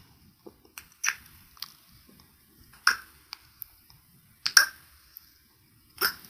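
Close-miked wet mouth sounds: a string of short, irregularly spaced lip smacks and clicks.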